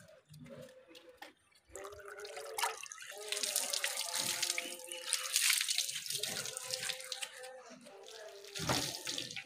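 Water poured from a steel bowl splashing onto the woven rope webbing of a charpai and dripping through it as the ropes are rubbed by hand, loudest through the middle, with a shorter splash near the end.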